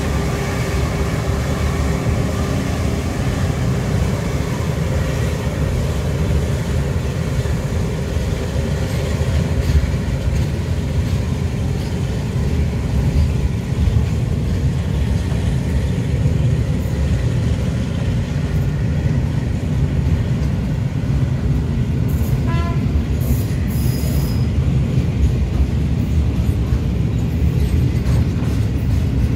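Container freight train wagons rolling past on the rails: a continuous low rumble and rattle of steel wheels on track.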